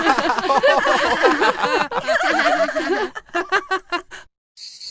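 Several cartoon voices laughing together, overlapping, for about three seconds, then a few short bursts before it stops.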